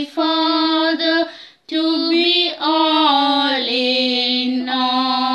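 A woman's voice singing slow, long-held notes of a religious song, with a short breath pause a little over a second in. The last note is held steady to the end.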